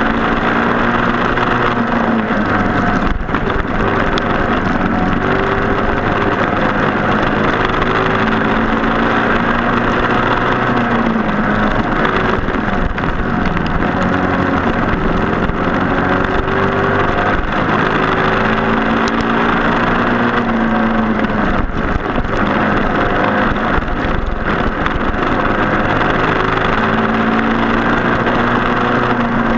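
Racing kart's Briggs & Stratton Animal single-cylinder four-stroke engine at full race pace, its pitch repeatedly climbing and then dropping off, over a steady rushing noise.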